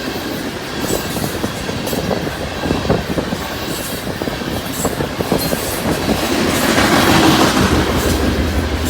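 Loaded coal train's hopper cars rolling past, their steel wheels clicking over rail joints in an uneven rhythm over a steady rumble. The rumble swells and grows louder from about six to eight seconds in.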